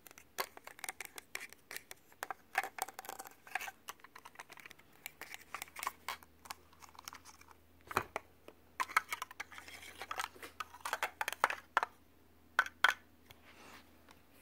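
Fingernails tapping and scratching on hollow plastic Mega Bloks building blocks: quick, irregular clicks in bunches, with a louder knock about eight seconds in.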